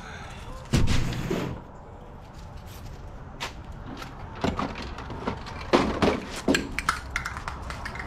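Plastic storage bins of plumbing fittings being handled and set down: a heavy thump about a second in, then scattered clicks and knocks of plastic bins and fittings.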